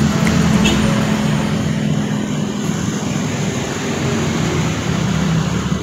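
Motorcycle and road traffic passing close by: a steady engine drone with road noise, easing off slightly toward the end.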